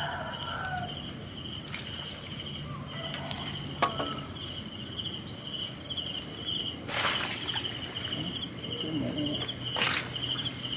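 Insects chirping steadily in several high layers, one in a fast pulsing trill. A few short rustles and knocks break in, loudest about seven and ten seconds in, as he handles plants and the trap at the bank.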